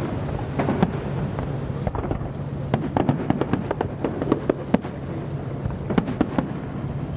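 Fireworks going off in a display: a rapid, irregular run of bangs and crackles over a steady low rumble.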